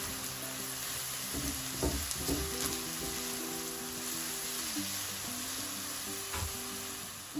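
Chopped onions and ground spices sizzling in hot oil in an aluminium pan while being stirred with a silicone spatula, with a few short scrapes of the spatula against the pan.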